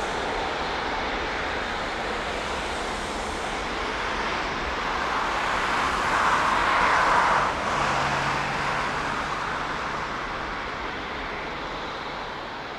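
Airbus A380's four jet engines as the airliner passes: a loud rushing noise that swells to a peak, drops off sharply about seven and a half seconds in, then fades.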